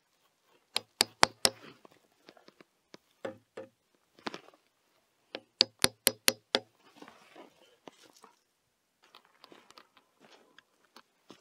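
Hammer knocking at the foot of a wooden post: a quick run of four sharp strikes, a few single ones, then a run of about six, followed by fainter scuffing and handling sounds.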